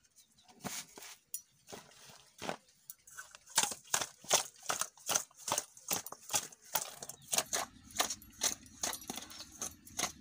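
Raw silver carp pieces being mixed by hand with turmeric and salt in a steel bowl: short wet clacks of fish and hand against the metal, a few at first, then regular at about two to three a second from a few seconds in.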